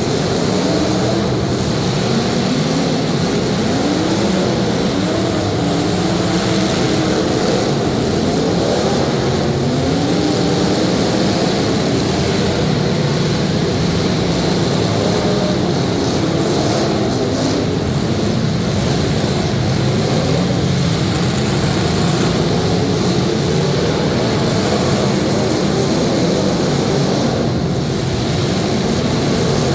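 Several demolition derby cars' engines running and revving together, their pitches rising and falling continually.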